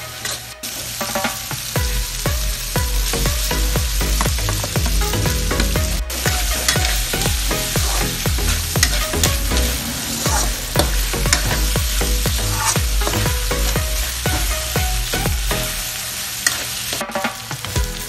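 Diced ham and sliced sausage sizzling in an aluminium wok while a metal spatula stirs them, with many quick clicks and scrapes of the spatula against the pan.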